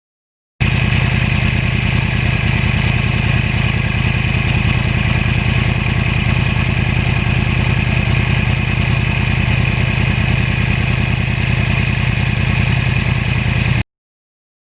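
2009 Yamaha R1 Crossplane's inline-four running at a steady engine speed through an aftermarket exhaust. The sound starts abruptly and cuts off suddenly near the end.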